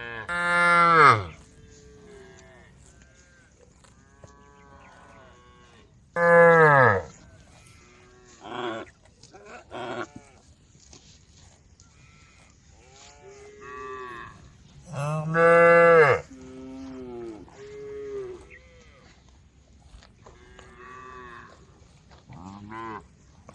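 Cattle mooing: three loud, long moos, each falling in pitch at the end, come right at the start, about six seconds in and about fifteen seconds in. Many quieter moos from other cows in the herd answer between them.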